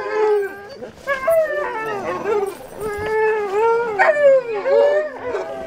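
Excited husky-type sled dog whining and howling in a string of long cries that waver up and down in pitch.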